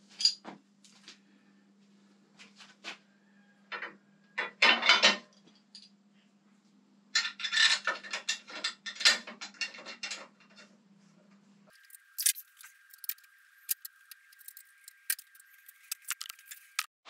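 Metal clinks and rattles from hand tools and bolts being handled while a motorcycle's front end is worked on. They come in bursts, the longest jangling run a little over half-way through, over a faint steady hum.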